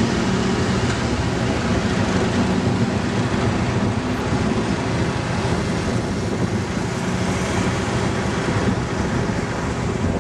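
A road vehicle's engine running close by: a steady low hum over street traffic noise.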